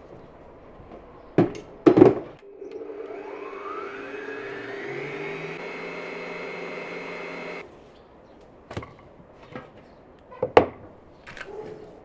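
Two knocks as the stainless bowl is set on a Eurolux electric stand mixer, then the mixer's motor starts, its whine rising as it speeds up, and runs steadily for a few seconds whipping cream with condensed milk before cutting off abruptly. A few clicks and a louder knock follow.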